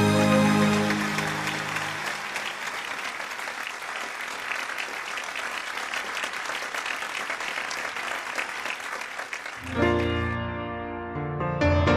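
A song's last chord fades out into applause, which goes on for several seconds; about ten seconds in, piano music begins.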